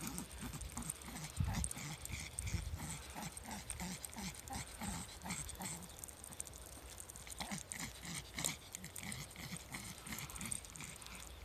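Small dog panting quickly and rhythmically, about three to four breaths a second, out of breath on a walk.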